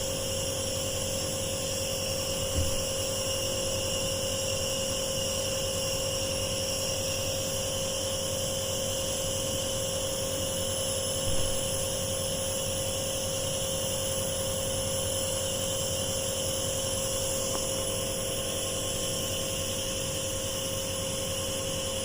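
Compressor nebuliser running, a steady hum with an even hiss, and two brief knocks, the first about three seconds in and the second about eleven seconds in.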